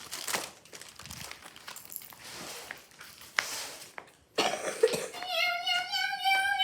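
Light clicks and rustling of objects being handled, then about five seconds in a child's voice holds one long, high note.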